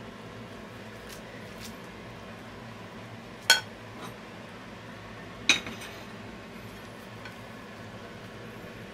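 Kitchenware being handled: two sharp clinks of a plate and a metal frying pan, about two seconds apart, with a few lighter knocks, over a steady low hum.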